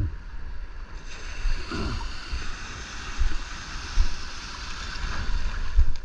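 Shallow sea surf washing and sloshing around a wader's legs, the wash swelling about a second in, with wind rumbling on the microphone.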